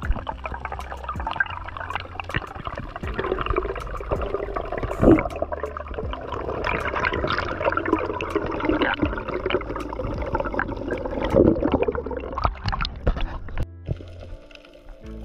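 Underwater bubbling and gurgling of air bubbles close to the camera, over background music. The bubbling stops near the end, leaving the music.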